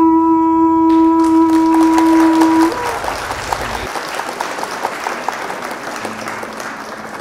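A conch shell blown as a horn: one loud, steady note held for about three seconds, then stopping. Applause follows and slowly fades.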